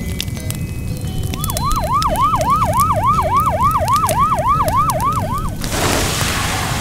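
Fire truck siren in yelp mode: a rapid wail sweeping up in pitch about three and a half times a second for some four seconds. Just before it stops, a loud hiss of water spraying from the fire hose takes over.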